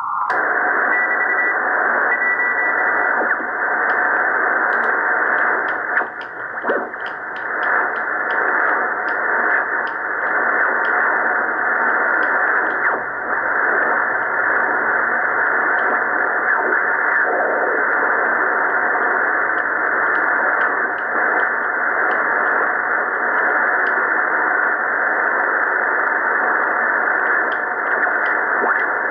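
Drake R77 HF receiver's speaker hissing with steady static as it is tuned by hand around 14 MHz between stations. A short high whistle comes and goes in the first few seconds, and faint ticks are scattered through the hiss.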